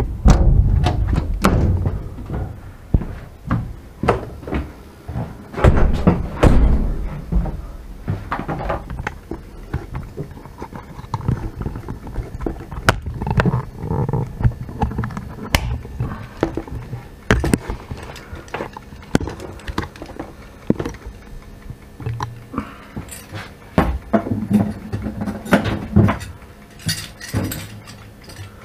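Irregular knocks, thuds and rattles inside an electric locomotive's cab over a low rumble, heaviest in the first few seconds and again near the end.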